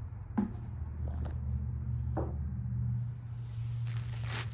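A steady low hum with a few short knocks and clicks, and a brief rustling hiss near the end.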